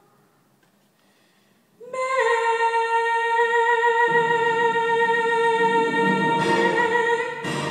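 After a near-silent pause of about two seconds, a woman belts one long, steady high note into a microphone, scooping up into it at the start. Instrumental accompaniment comes in underneath about two seconds after the note begins.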